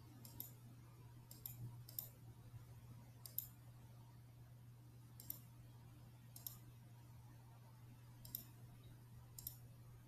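Computer mouse clicking: about eight short, sharp clicks at irregular intervals over a faint steady low hum.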